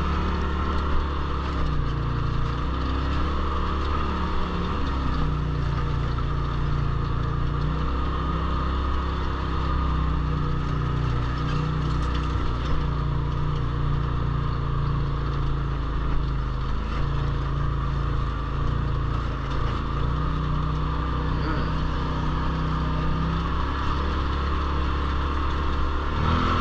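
Turbocharged Polaris RZR side-by-side engine running steadily under way, its low hum shifting a little in pitch now and then as the throttle changes.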